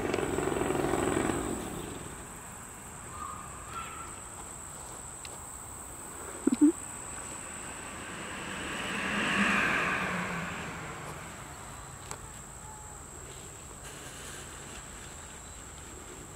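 Insects, crickets by the sound tags, trilling in a steady high thin tone throughout. A paramotor engine swells as it passes overhead near the middle and fades away. A louder engine noise dies away in the first two seconds, and two short sharp sounds come about six and a half seconds in.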